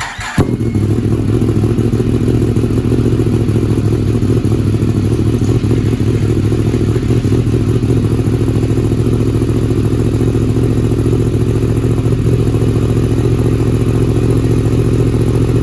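2016 Yamaha R1M's crossplane inline-four engine catching on the starter about half a second in, then idling steadily and loudly on its first start after the rebuild.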